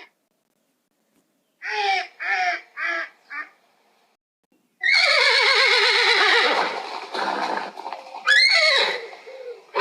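A duck quacks four times, then a horse neighs: one long whinny whose wavering pitch falls, and a second, shorter whinny near the end.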